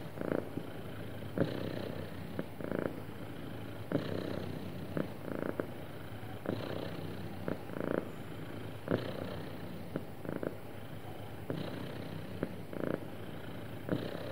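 Domestic cat purring steadily, the purr swelling and easing in a cycle of about two and a half seconds as it breathes in and out.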